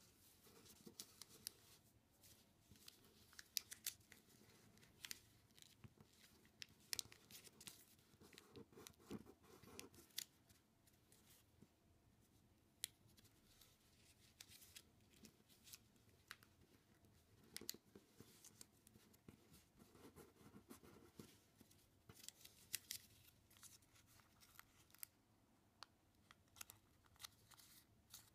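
A sheet of origami paper being folded and creased by hand: quiet rustling with sharp, crisp crackles scattered all through.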